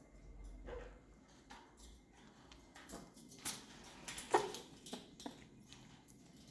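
A small pet animal making a string of short, strange noises with clicks in between. The loudest is a brief pitched sound about four seconds in.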